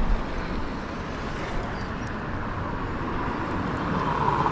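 Outdoor city street ambience: a steady wash of traffic noise.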